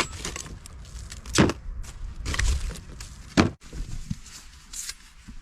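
Lumps of charcoal knocking and clattering as they are loaded into a storage container, with two sharper knocks about a second and a half in and again about three and a half seconds in.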